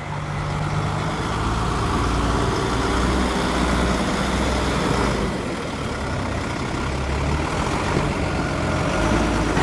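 Fendt Vario tractor's diesel engine running while it works its front loader, a steady low hum whose note shifts a few times, dipping slightly about halfway.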